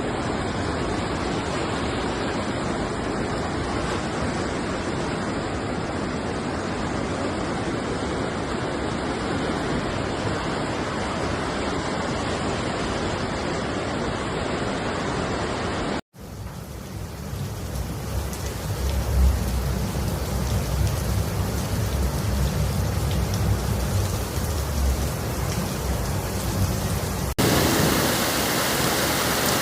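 Steady noise of heavy rain and rushing floodwater, with no voices. About halfway through it breaks off sharply and returns with a deeper rumble, and it changes again near the end.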